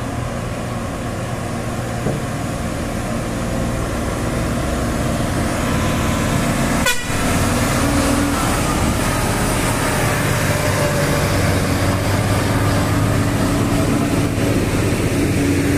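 Diesel engine of a Hino 500 tractor unit pulling a loaded container trailer up a steep grade. It grows louder over the first several seconds as the truck comes up past close by, then holds steady.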